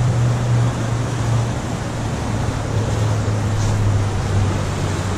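River rapids rushing: a steady wash of whitewater noise, with a steady low hum underneath.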